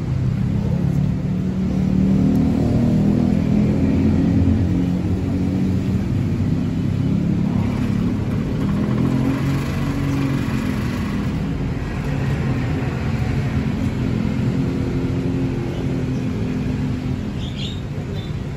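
Motor vehicle engine running close by, its pitch rising and falling, over a steady rumble of street traffic.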